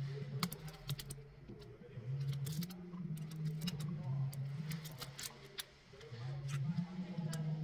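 Irregular small clicks and taps of a plastic opening pick working around the frame of a cracked iPhone 11 as the display is pried loose, over a low hum that comes and goes.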